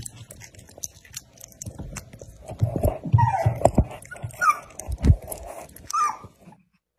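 A puppy gives three short, high whines while mouthing a sausage held to its mouth, with small wet chewing and licking clicks between them.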